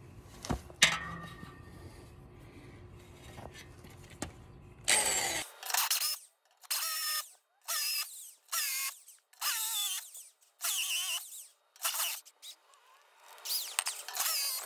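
Corded hammer drill with a half-inch masonry bit boring into a concrete slab. The drill is run in short bursts of about half a second, roughly one a second, starting about five seconds in. Before that it is quiet except for one sharp click about a second in.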